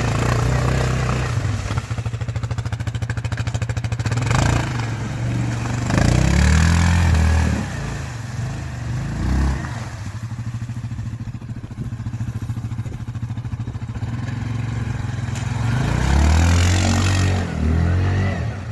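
ATV (quad bike) engine running in a stream crossing, revving hard in several bursts between steadier running, as the machine works to climb out against the bank.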